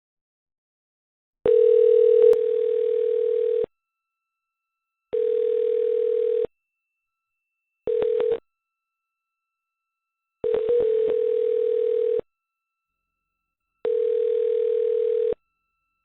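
Telephone dial tone heard in five separate stretches of about half a second to two seconds, each cut in and off abruptly with a click, with silence in between: phone lines being picked up and dropped one after another.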